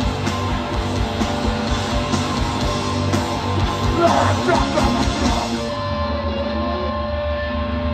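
Hardcore punk band playing live: pounding drums under heavily distorted guitar and bass. About six seconds in, the drums and cymbals stop and a held guitar and bass chord rings on.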